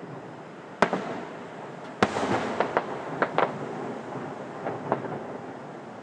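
Fireworks going off: a sharp bang about a second in, a second bang near two seconds followed by a quick run of crackling pops, and a couple more pops near the end.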